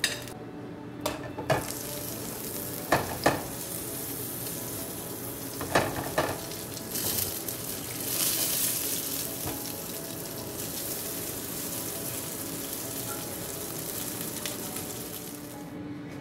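Coated whole mullet frying in hot oil in a skillet, a steady sizzle that swells about seven seconds in as the fish goes into the oil. Metal tongs click against the pan a few times in the first six seconds.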